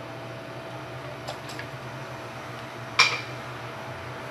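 A metal hand tool is set down on the workbench: two faint ticks a little over a second in, then one sharp clink about three seconds in. A steady fan hum runs underneath.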